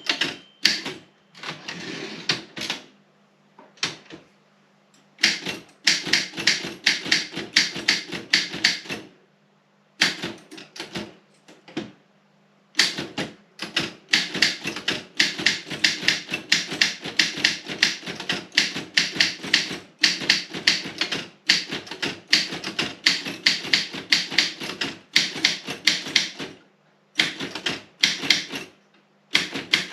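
Robotron 20 typewriter being typed on in quick runs of keystrokes, several clacks a second, broken by short pauses, with a low steady hum underneath.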